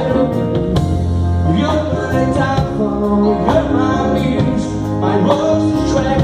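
Music: a song played with guitar accompaniment.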